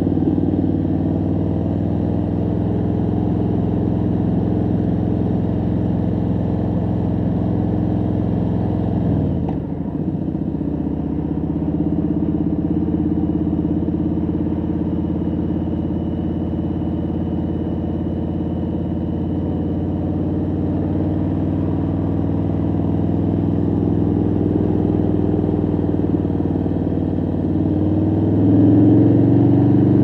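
2019 Harley-Davidson Street Bob's Milwaukee-Eight V-twin engine running steadily while riding, heard from the rider's helmet. The revs drop about nine seconds in, and near the end they rise as the bike accelerates.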